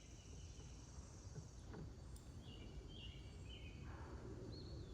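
Faint outdoor ambience: a low background rumble with a faint high insect buzz in the first second or so, and a few faint, short bird chirps in the middle and near the end.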